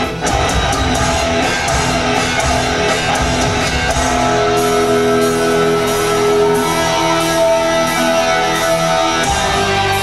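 Rock band playing an instrumental live, with electric guitar, bass and drums; about four seconds in, long held notes ring out over the band.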